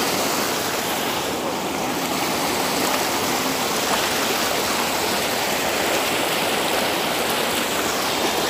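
Muddy floodwater rushing steadily over a tar road and breaking up the asphalt: a continuous, even rush of water.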